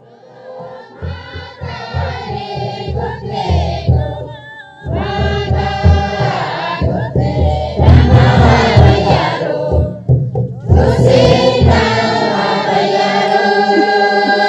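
Group of voices singing a Kinnauri traditional song in held, drawn-out lines over a low repeated beat, with two short breaks between phrases.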